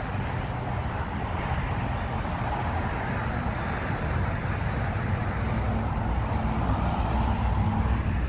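Steady road-traffic noise: a continuous low rumble with a hiss of tyres, even in level throughout.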